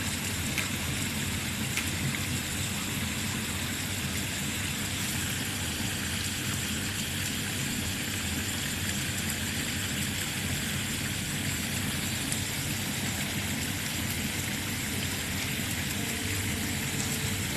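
Steady outdoor noise at a koi pond: an even hiss of water with a low hum underneath.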